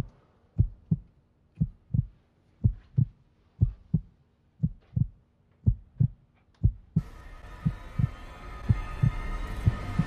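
Heartbeat sound effect: paired low thumps, lub-dub, about once a second. About seven seconds in, a sustained droning tone swells in beneath it.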